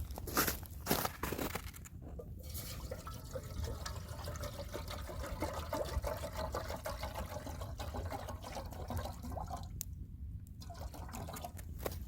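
Water being poured steadily into a pot for about seven seconds, starting a couple of seconds in and stopping abruptly, with scattered clicks and crackles before and after.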